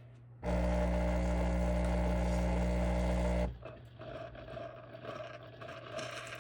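Gevi espresso machine's pump buzzing steadily as it dispenses hot water. It cuts off suddenly after about three seconds, leaving a softer hiss, and starts buzzing again at the very end.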